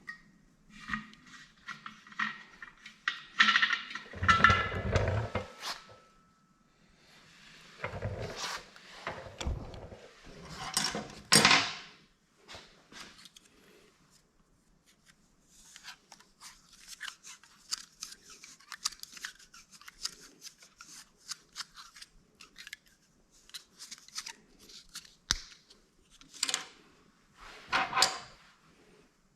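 Hand-work noises from assembling metal pipe fittings: irregular clicks, scrapes and knocks, with a long run of fine rapid clicking in the second half.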